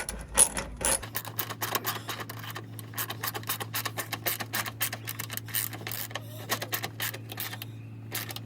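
Socket ratchet clicking rapidly as it is worked back and forth, tightening a bolt on the car battery. A steady low hum starts about a second in.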